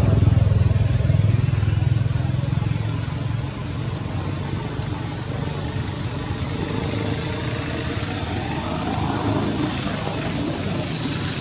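Low engine rumble from a motor vehicle, strongest for the first three seconds or so and then easing off, with faint voices in the background.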